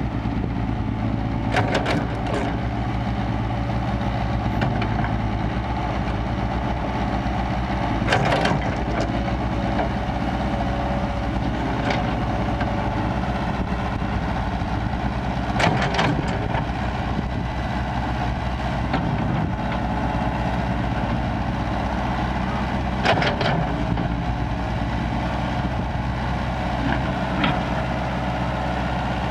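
Diesel engine of a Kobelco crawler excavator running steadily under load as it digs soil. About half a dozen sharp metallic clanks come from the bucket and arm at intervals.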